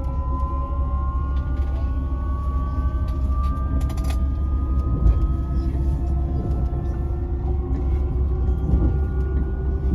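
Öresundståg electric multiple-unit train running, heard from inside the passenger car: a steady low rumble with the electric traction motors' whine climbing slowly in pitch as the train gathers speed. A few brief clicks come about four seconds in.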